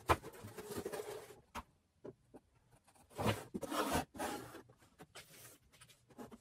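Clear vacuum-formed plastic packaging tray crinkling and rustling as it is handled and set down, in irregular spells with small clicks; the biggest come right at the start and again about three seconds in.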